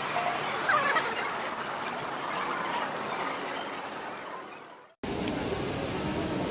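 Steady, echoing ambient noise of a large hall with people moving about. It fades out shortly before five seconds in and cuts abruptly to a fuller hall noise.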